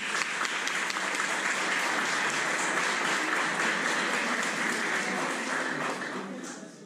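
Audience applauding, a dense steady clatter of many hands clapping that dies away near the end.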